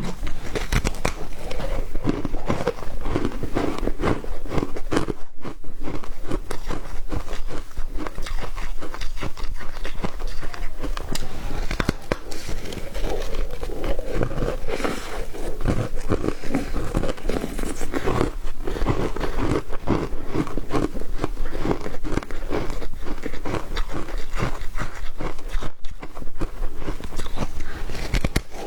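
Foam ice being bitten and chewed: continuous, irregular crunching and crackling, broken by two very brief pauses.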